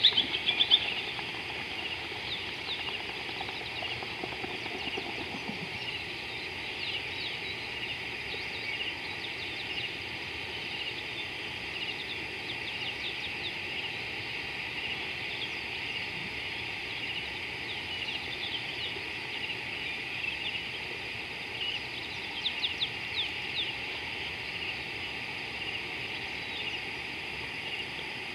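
Natural outdoor ambience: a loud run of rapid bird calls that stops about a second in, then a steady high chorus of chirping with scattered faint bird chirps over it, a little busier near the end.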